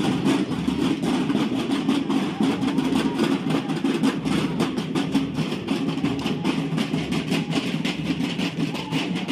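Snare drums of a marching drum and bugle band playing a rapid, steady marching cadence.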